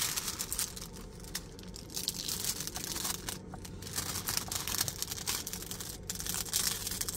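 Plastic scraper tool pushed in short repeated strokes over the clear plastic cover film of a diamond painting canvas, with scratchy rubbing and crinkling of the film as the canvas is flattened and air bubbles are worked out.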